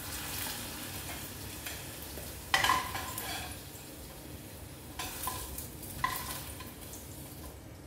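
Potato pieces sizzling in hot oil in a pot as they are scooped out with a metal spoon. A few sharp clinks of the spoon against the pot and bowl come about two and a half seconds in, and again around five and six seconds.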